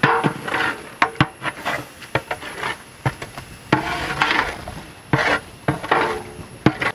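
Long-handled metal ladle scraping and knocking against a large metal cooking pot while masala and curd are stirred together, with repeated sharp clinks about once or twice a second between scraping strokes.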